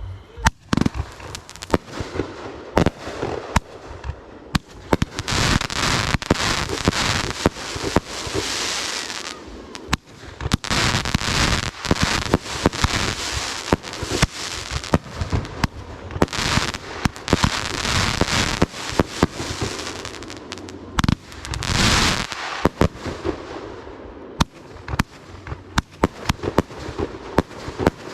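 Fireworks going off: a steady run of sharp bangs from shells bursting, with long waves of dense crackling between them, thinning out toward the end.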